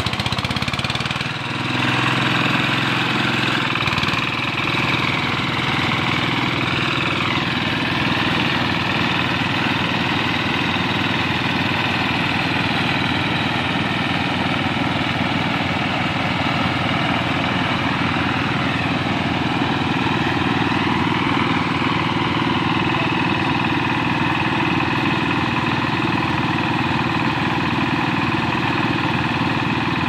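Small engine of a portable rice threshing machine running steadily, its pitch dipping briefly twice.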